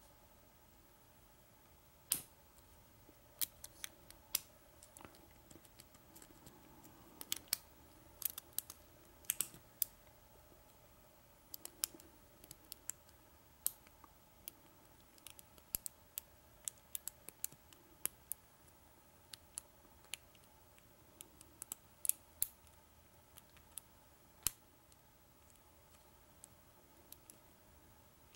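Lock pick and tension tool working in the keyway of a Kwikset Smartkey padlock during single pin picking, giving faint, irregular small metallic clicks, sometimes several in quick succession, as the sidebar sliders are worked.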